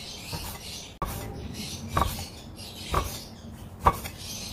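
Cleaver slicing lean pork thinly across the grain on a wooden chopping board, the blade knocking on the board about once a second, three times.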